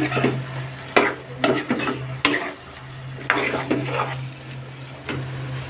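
A steel spoon stirring and scraping a thick, sizzling prawn and taro-stolon curry in a non-stick pan, in irregular strokes a half second to a second apart, while the spiced mixture is fried down. A steady low hum runs underneath.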